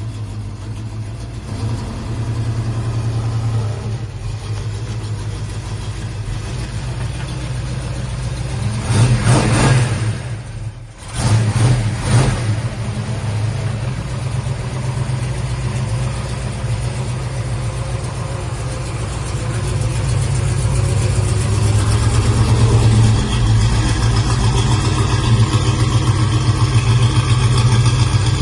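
1968 Chevrolet Chevelle SS V8 running with a steady, deep exhaust note, revved twice about a third of the way in, then running louder through the latter half.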